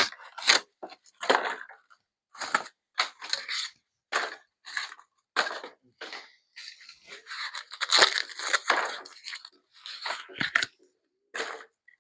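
Packing paper and tape being ripped off a bike frame by hand, in irregular short tearing and crumpling bursts, busiest about two-thirds of the way in.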